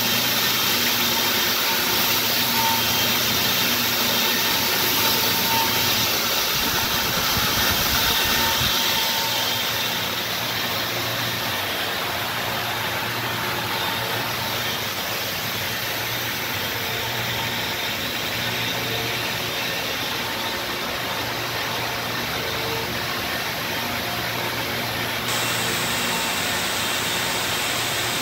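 Circular knitting machine running at speed: a steady mechanical whir with a faint hum. It gets slightly quieter about ten seconds in.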